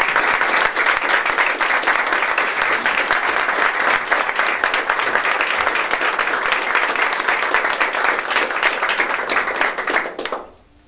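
Audience applauding, a dense sustained clapping that dies away sharply near the end.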